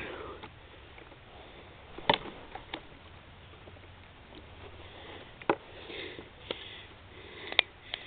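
Smouldering embers of burnt dead grass giving a few sharp crackles and pops over a faint hiss.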